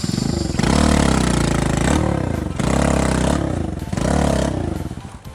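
Honda Cub motorcycle's single-cylinder engine revving in three surges as the bike is ridden up over rocky ground, the pitch rising and falling with each burst of throttle.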